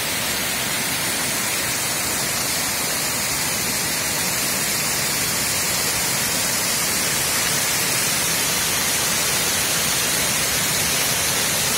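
Water from a full reservoir overflowing its concrete spillway, pouring in a sheet over the whole length of the sill and churning below in a steady rush, a little louder in the second half.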